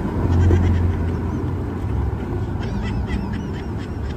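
A loud, low, buzzing fart noise about half a second in, lasting under a second, with weaker low buzzing after it.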